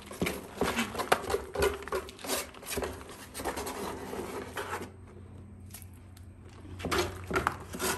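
Wet cement paste being scraped and spread over the ribbed back of a granite floor tile, in short strokes, with a pause of about two seconds before the strokes start again near the end.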